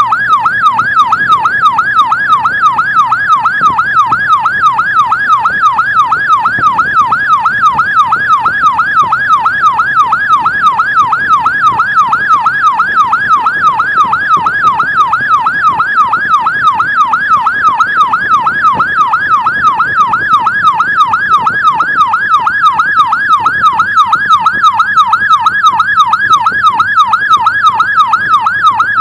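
Electronic emergency siren in a fast yelp, sweeping up and down in pitch about two to three times a second without a break, with faint vehicle engine noise underneath.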